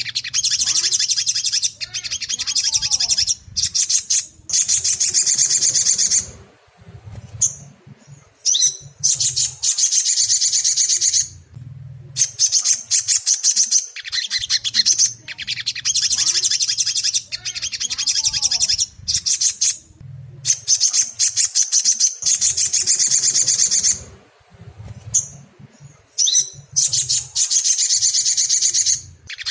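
Sogon (sunbird) song played as a lure recording: rapid, high-pitched chattering trills in long runs broken by short pauses, the same sequence repeating about every 14 seconds. It is used to provoke a captive sogon into singing.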